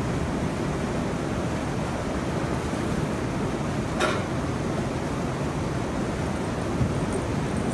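Steady rush of river water pouring through the wooden needles of a needle dam, with one sharp knock about four seconds in as a needle is handled on the walkway.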